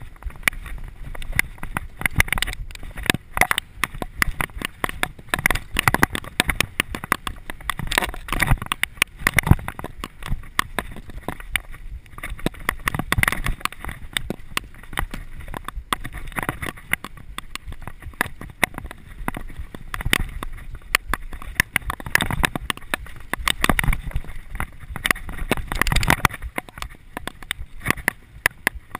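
Mountain bike descending a dirt singletrack at speed: a continuous, irregular clatter and knocking as the bike and its suspension fork bounce over roots and bumps, over the rush of tyres on dirt and passing air.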